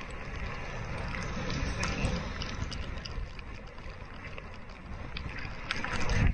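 Wind and rushing sea water as a sailboat's bow drives through rough waves, with spray breaking over the foredeck; the noise swells near the end as a wave breaks at the bow.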